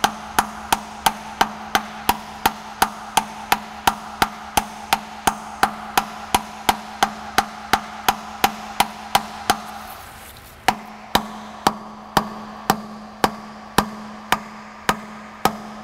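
Plastic hammer tapping on a brass drift, about three even blows a second, driving a brass pilot bushing into the crankshaft; the tapping pauses briefly about ten seconds in, then resumes.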